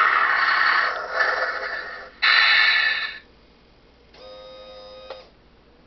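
RC track loader making a loud hissing noise that fades over about two seconds. A second sudden hiss lasts about a second, then a steady electronic beep lasts about a second.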